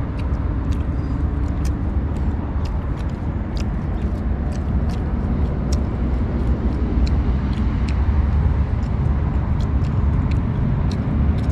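Car running with a steady low rumble, with scattered light clicks over it.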